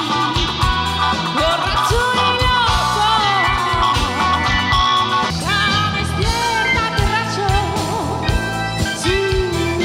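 Live blues band: a woman singing lead over electric guitar, keyboard and drums, with a steady beat and a low bass line.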